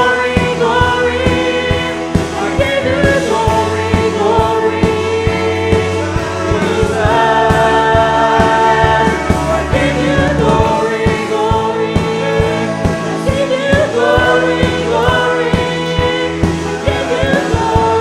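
Live worship band playing a Spanish-language praise song: drum kit, electric guitar and keyboard under sung vocals, with steady regular drum hits.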